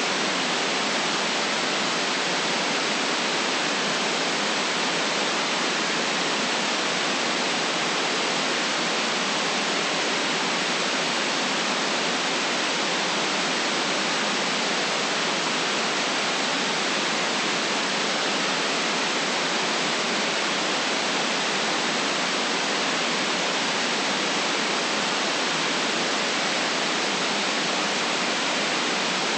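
Steady white noise for sleep: an even, unchanging hiss with no deep rumble.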